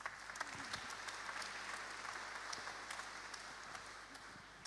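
Congregation applauding, a dense patter of many hands clapping that slowly dies away near the end.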